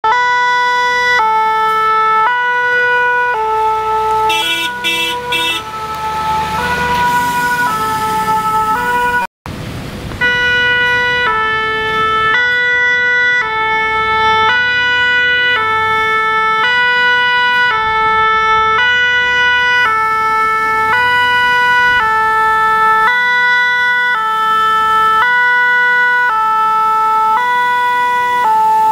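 French two-tone fire-brigade siren ('pin-pon') on a Renault fire tanker, alternating evenly between two close pitches about once a second, with the truck's engine running underneath. The sound cuts out abruptly for a moment about nine seconds in, then the siren resumes.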